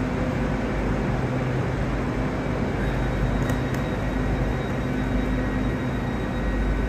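Steady low mechanical hum of a GWR intercity train standing idle at the platform.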